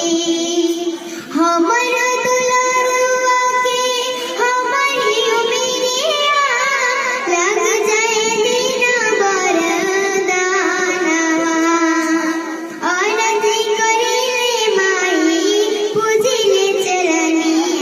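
A young girl singing a melody solo, holding long notes that bend and waver in pitch.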